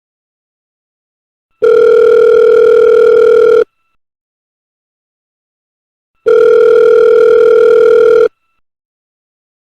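Telephone ringing tone, a steady electronic tone rather than a bell: two rings of about two seconds each, with silence between. The first starts about a second and a half in and the second about five seconds later.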